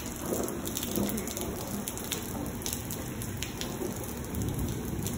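Heavy rain falling steadily on pavement, with scattered sharp drips ticking through the steady hiss.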